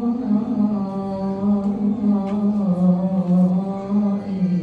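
A single man's voice chanting a long wordless melisma in Coptic liturgical style, holding one vowel and sliding slowly between neighbouring notes.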